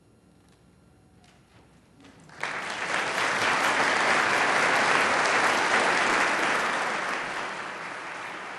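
Audience applauding: the clapping breaks out suddenly after about two seconds of near silence, builds, then slowly dies down near the end.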